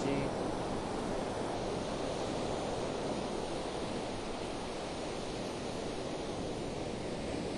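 Ocean surf washing steadily onto a sandy beach, an even rushing noise with no distinct breaks.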